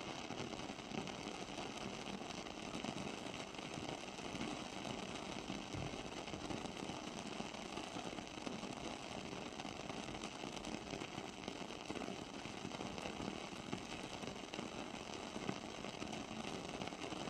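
Wooden-wick candle burning with a steady crackle, a fine hiss dotted with small irregular pops, like a tiny fireplace.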